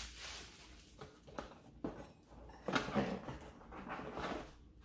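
Plastic packaging crinkling and a cardboard box being handled, with a few short knocks and rustles. About three seconds in there is a short voice-like sound.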